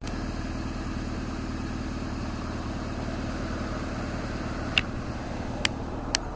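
Vehicle engine idling steadily, a low even hum. Three short sharp clicks come in the second half, the last two close together.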